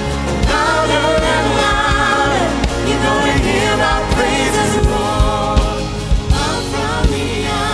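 Live gospel worship song: a male lead singer and female backing singers over guitars, with drum hits.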